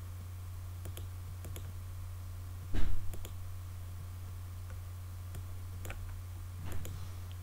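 Scattered computer mouse and keyboard clicks, about eight in all, the loudest about three seconds in, over a steady low electrical hum.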